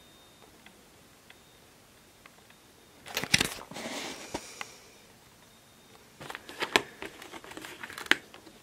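Small cardboard advent-calendar box being handled and opened: cardboard and packaging rustling, with a few sharp clicks and taps. It comes in two spells, about three seconds in and again from about six seconds on.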